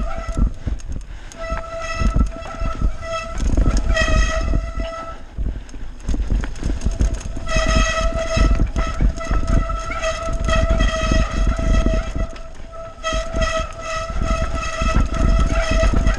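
Mountain bike descending a rough dirt trail: tyres and wind rumbling with knocks from the ground, over which the disc brakes give a steady high squeal at one pitch in three long stretches, about a second and a half in, from about seven and a half seconds in, and again just after.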